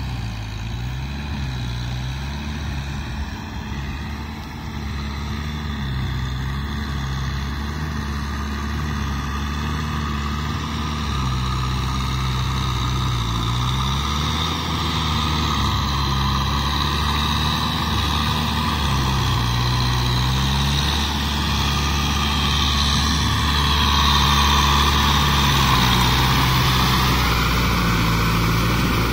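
Kubota M6040 tractor's diesel engine running under load as it drives a rotary tiller through a flooded paddy, its note wavering up and down, growing steadily louder as the tractor comes closer.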